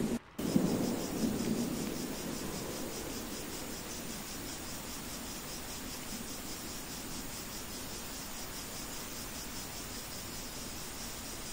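Rain-sounds ambience track. A low thunder rumble fades over the first couple of seconds, broken by a brief dropout just after the start, then steady rain hiss continues with a fast, pulsing high insect trill that stops near the end.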